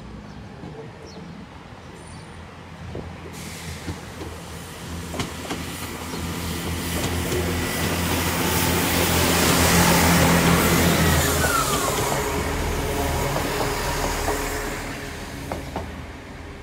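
Class 800 bi-mode IET train on its diesel engines running in through the station and slowing. The rush of wheels and air swells to a peak about ten seconds in over a steady engine drone, and a whine drops in pitch as it brakes, about eleven seconds in.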